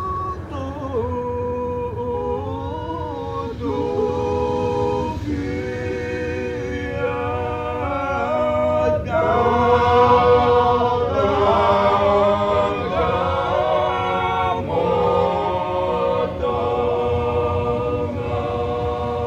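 A choir singing a cappella, several voices holding slow sustained chords over a low steady hum. It swells to its loudest about halfway through.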